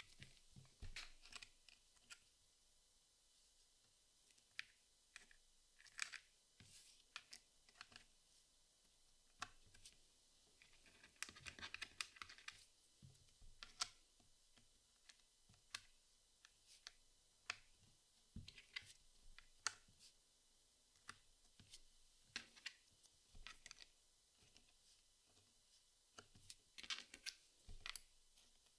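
Jigsaw puzzle pieces being handled: scattered soft clicks, taps and scratches of cardboard pieces on the board, with a denser stretch of rustling a little before halfway.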